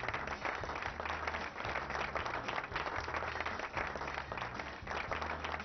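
Applause over background music with a bass line pulsing about once a second.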